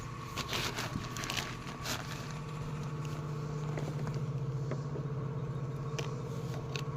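A steady low mechanical hum, like an idling engine, with scattered clicks and crackles during the first two seconds.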